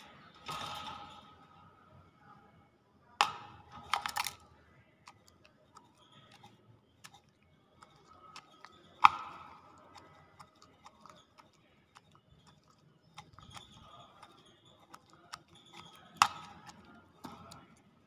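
Caged common hill myna close to the microphone: a short harsh sound about half a second in, then scattered sharp clicks and taps, the loudest about three, four, nine and sixteen seconds in.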